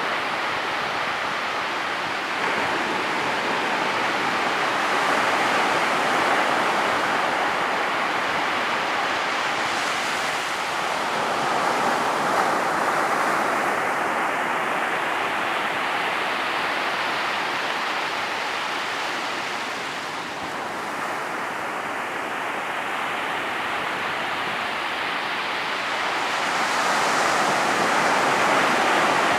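Ocean waves breaking on a beach: a continuous wash of surf that swells and eases every few seconds, with a louder break near the end.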